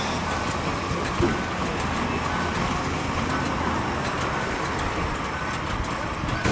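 Steady road traffic and gas-station background noise with a low hum, and a faint short tone repeating about once a second.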